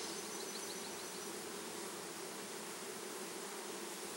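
A newly installed package of Italian honeybees buzzing steadily in an open hive box. A faint high trill sounds over it in the first second.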